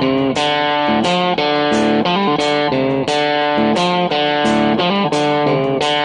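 Instrumental background music: a guitar playing an even run of notes at a steady pace.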